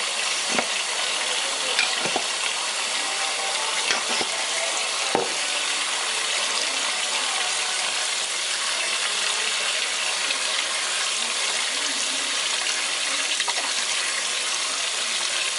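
Faucet water running on high, a steady rush, with a few light knocks and clicks in the first five seconds as the wet hair is handled.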